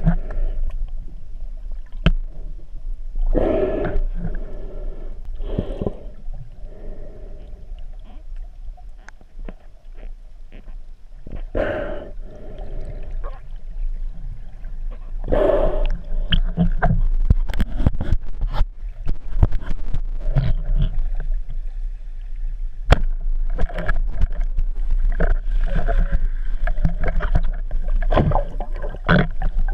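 Underwater sound picked up through a GoPro housing: a steady low rumble with water rushing past, a few louder swells of water noise, and many scattered sharp clicks and knocks, more of them in the second half.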